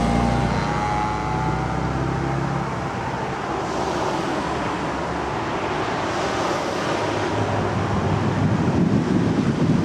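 Cars passing close by on the road one after another: the first car's engine note falls a little in pitch as it goes past during the first two seconds or so, followed by steady tyre and traffic noise.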